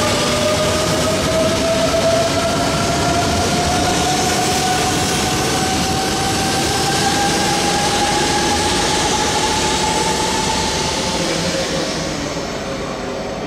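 E926 East-i shinkansen inspection train pulling out past the platform. Its motors whine in a pitch that rises slowly as it gathers speed, over a steady rush of wheels and cars passing close. The sound drops away near the end.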